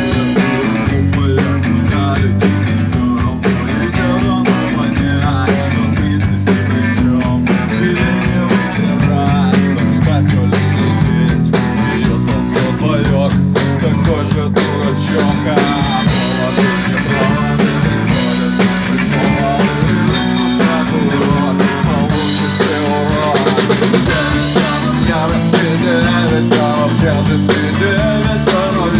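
Rock band playing a song live: guitar over a steady drum-kit beat, loud and steady. About halfway through, the sound grows brighter as the cymbals come up.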